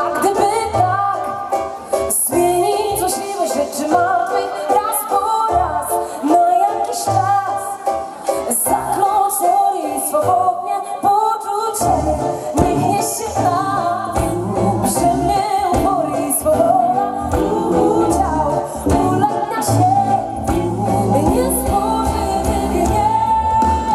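Live band performing through a PA, heard from the audience: a woman sings lead over drums, bass and guitar. The bass and drums fill in more steadily about halfway through.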